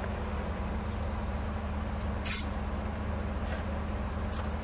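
A steady low hum runs throughout, with a few brief hisses on top; the loudest hiss comes about halfway through.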